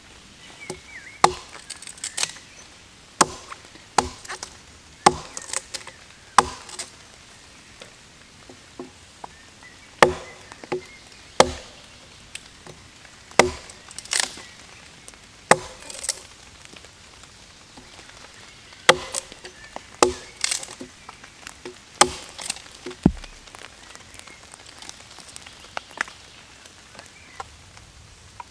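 Small hatchet chopping and splitting firewood against a log: sharp, irregular chops, often in quick pairs, with short pauses between groups.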